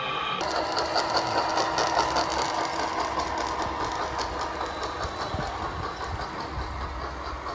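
Radio-controlled scale model Cat 963B track loader driving with a loaded bucket: a steady motor and gearbox whine over the busy clatter of its tracks.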